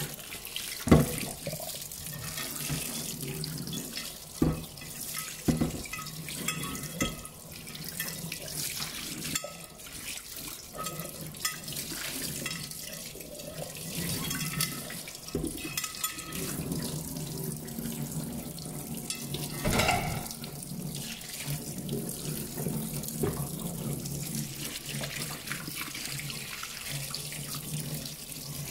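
Tap water running steadily into a stainless-steel sink while a ceramic plate is washed by hand, with a few sharp knocks as the plate is handled against the sink.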